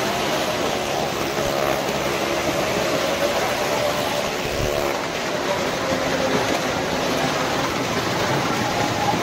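Cars and motorcycles in a well-of-death pit, their engines running hard as they circle the steep wooden wall. It is a loud, continuous din, with the engine pitch rising and falling.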